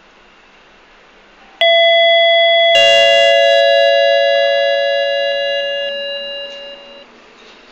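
Lift arrival chime: a two-note electronic ding-dong, a higher note followed about a second later by a lower one, both ringing on and fading away over about four seconds. It signals that the lift car has reached the floor.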